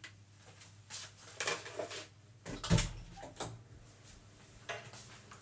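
Kitchen handling noises: scattered light knocks and clatters of things being moved about, with one heavier thump a little under three seconds in.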